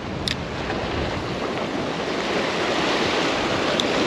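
Sea waves breaking and washing over jetty rocks, a steady rush of surf, with a brief sharp tick about a third of a second in and another near the end.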